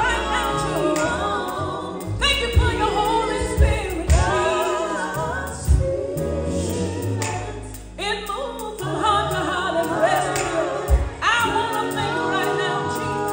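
Women's gospel vocal group singing in harmony through microphones and a PA, over a low accompaniment that holds steady notes and moves in steps.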